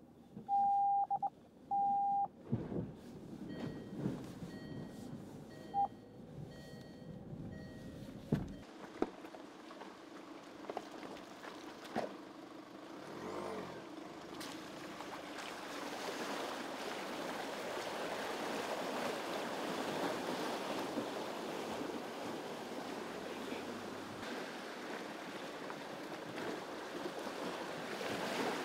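A few loud electronic beeps near the start, then a Land Rover Freelander 2 wading through a shallow stream. The engine runs low under water rushing and splashing around the wheels, and the water grows louder over the second half.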